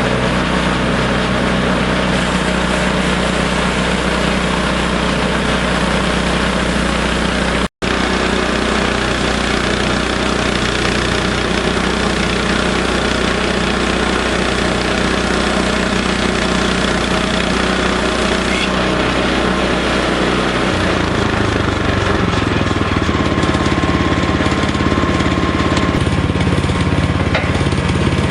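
Gas engine of a Harbor Freight portable bandsaw sawmill running steadily while sawing a log. The sound drops out for an instant about eight seconds in, and its low hum shifts about twenty seconds in.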